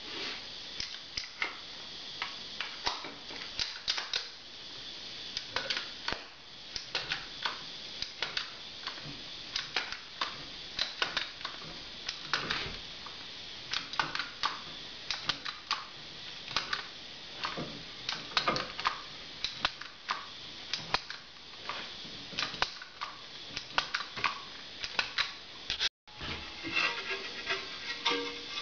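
Caulking gun clicking over and over as construction adhesive is squeezed out in dabs onto the back of a board: sharp, irregular clicks, a few a second, over a steady hiss.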